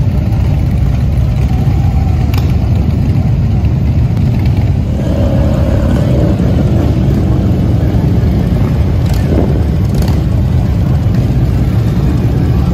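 A procession of motorcycles, mostly cruisers and touring bikes with a trike among them, riding slowly past one after another. Their engines make a loud, steady, low rumble.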